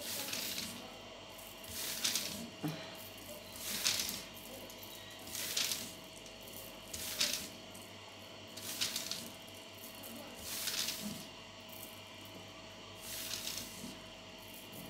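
Fine glitter shaken from a small tube and pattering onto a glue-coated reed stick and the paper under it, a soft hiss with each shake, about every one and a half to two seconds.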